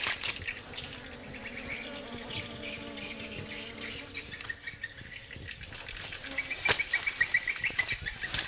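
Honeybees buzzing at their nest in an earth burrow, a faint steady hum during the first half, with high insect chirping and brief rustles of brush.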